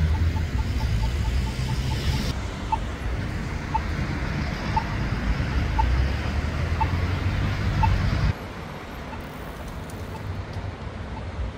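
City street traffic rumbling, with a short high beep repeating about once a second. The background changes abruptly about two seconds in and again about eight seconds in, becoming quieter after the second change.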